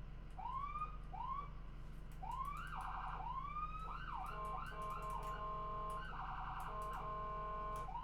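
Ambulance electronic siren switching between patterns. It gives two short rising whoops, then rising wails and a fast warbling yelp, and from about halfway it holds a steady tone, broken by another burst of fast warble.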